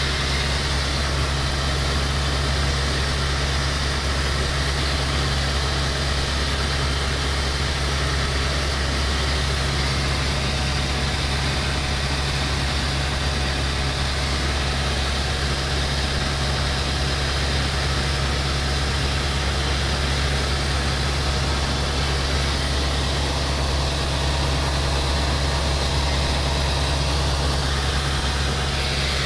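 Steady drone of a light single-engine propeller airplane's piston engine and propeller in cruise, heard inside the cockpit with rushing air noise, holding one even pitch throughout.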